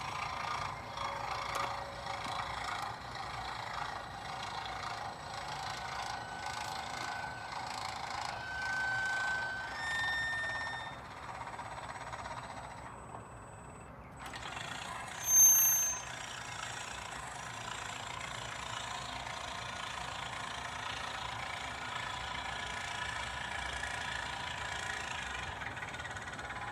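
Gate in motion, making a steady rattling, grinding mechanical noise with short squealing tones a few times, and a brief, loud, high-pitched squeal about halfway through. It is a worrying noise that suggests a fault in the gate's mechanism.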